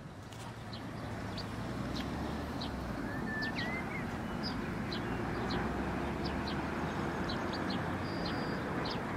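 Small birds chirping in short, sharp notes many times, with a brief whistled note about three seconds in, over a steady low background rumble.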